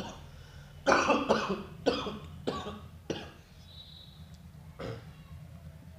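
A man coughing, four coughs in quick succession between about one and three seconds in, then a fainter one near the end, over a low steady hum.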